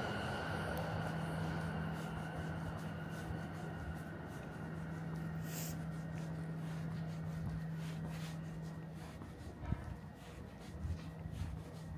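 An electric commuter train passing and fading away: its rumble and a high whine die down over the first half. A steady low hum remains, and a few sharp knocks come near the end.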